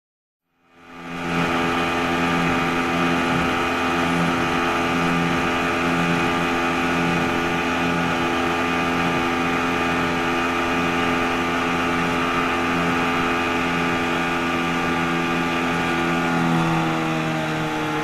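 25 hp outboard motor driving a boat at speed, a steady engine note; near the end it is throttled back and the pitch falls as the boat slows to come in to dock.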